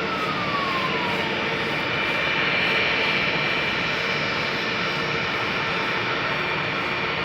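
Airbus A321's jet engines running at taxi power, a steady whining rumble. A high whine falls in pitch over about the first second.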